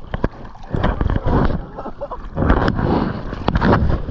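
Water splashing and sloshing over a wet camera worn against a life vest, with uneven buffeting and many short knocks and scrapes as the camera rubs against the vest webbing.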